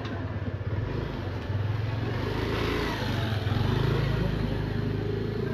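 Motor scooter engine running as it rides past close by, getting louder to a peak about four seconds in.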